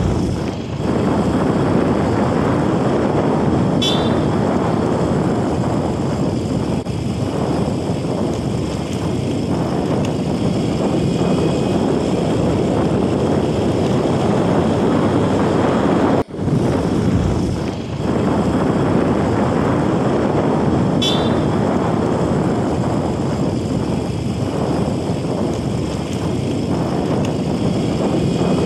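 Motorcycle riding along a road, heard from on the bike: a steady mix of engine and wind noise, with a brief break about sixteen seconds in.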